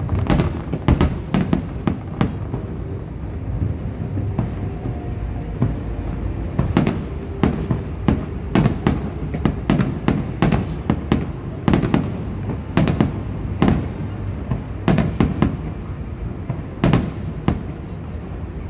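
Aerial firework shells bursting: dozens of sharp bangs in quick, irregular succession over a steady low rumble.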